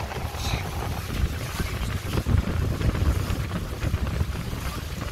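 Wind buffeting the microphone aboard a boat moving across open sea, an uneven low rumble over the general noise of the boat and the water.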